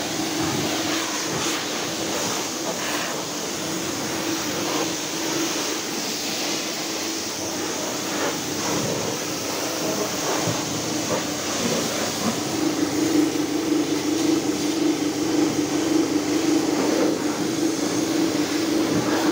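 High-pressure washer running, its pump humming steadily under the hiss of the water jet spraying against a jeep's tyre and bodywork. The hum gets louder about two-thirds of the way through.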